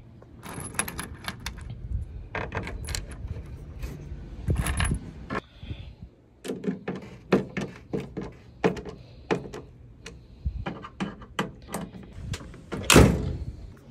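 Small metal clicks and clinks of bolts, washers and a hand screwdriver as new hardware is hand-tightened into a tailgate overlay panel, in irregular runs, with one louder knock near the end.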